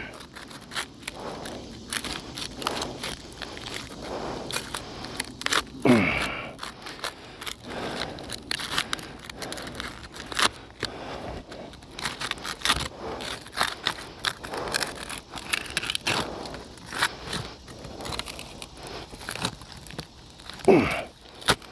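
A flat knife being worked between asphalt roof shingles to break the tough sealant bond, giving a steady run of scraping and crackling as the sealed shingles are pried apart and the edge tears a little. Two short sounds falling in pitch stand out, about six seconds in and near the end.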